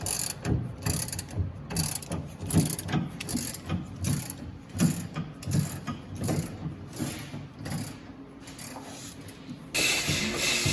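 Hand ratchet wrench clicking in short irregular strokes, working the bolts of a pickup's rear leaf-spring shackles. About a second before the end it gives way suddenly to a steady hiss.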